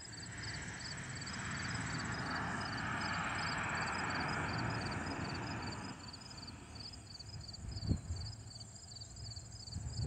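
Distant jet roar of an Airbus A330-900neo's Rolls-Royce Trent 7000 engines climbing out, swelling over the first few seconds and fading by about six seconds in. Crickets chirp steadily throughout, and there is a single bump about eight seconds in.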